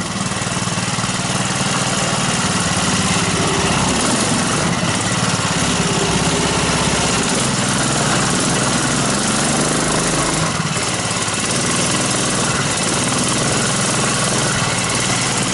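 Small petrol engine of a homemade snow vehicle running steadily, heard close up, with no big changes in speed.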